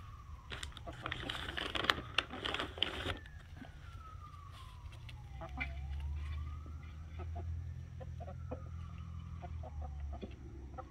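Buff Orpington chickens clucking with a noisy flurry about a second in. Under it, a faint siren wails, its pitch sliding slowly down, up and down again over several seconds.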